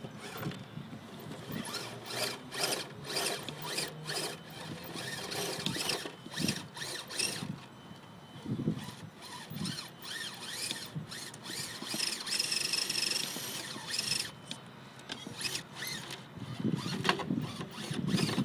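Electric RC rock crawler's brushed motor and hardened transmission gears whining on and off as it climbs. Its tyres and chassis scrape and knock against rock throughout.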